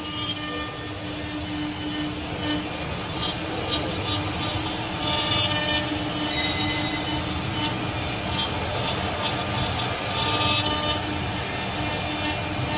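A WS-L1516-4S CNC wood lathe's engraving spindle is routing a spiral twist into turned wooden spindles. The spindle motor runs with a steady hum, and the router bit cutting the wood gives short, high, rasping bursts now and then. The machine noise grows louder over the first few seconds.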